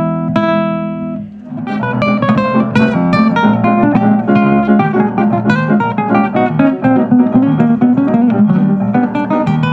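Nylon-string classical guitar played solo: a held chord rings for about the first second, then a fast, busy run of fingerpicked notes carries on.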